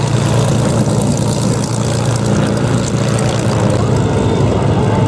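The four radial piston engines of a B-17 Flying Fortress, running steadily as it flies its display, giving a loud, even, low drone.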